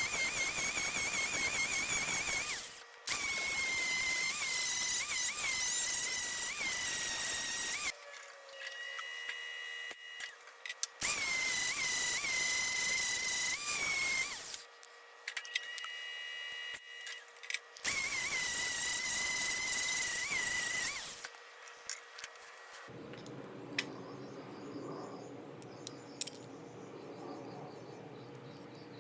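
Small handheld electric power tool running in bursts of a few seconds, switched on and off four times. Its motor whine wavers and jumps in pitch as it is pressed against the work.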